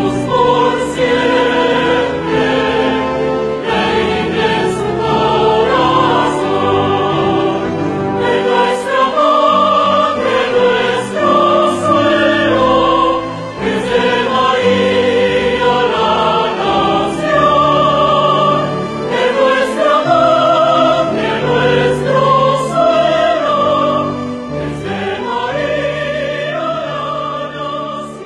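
Choral music: a choir singing long, sustained notes over an orchestral accompaniment.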